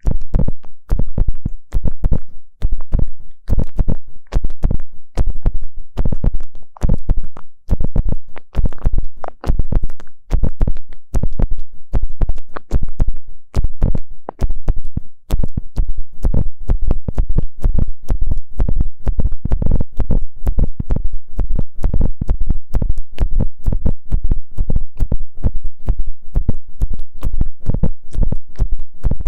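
Ear pick scratching and rubbing close against the microphone in quick, loud strokes, several a second, packed more tightly together in the second half.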